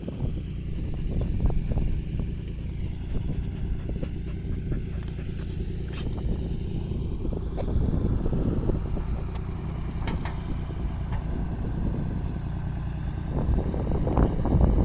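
Backhoe's diesel engine running, with scattered knocks and clanks; the engine pitch rises about seven seconds in as it revs.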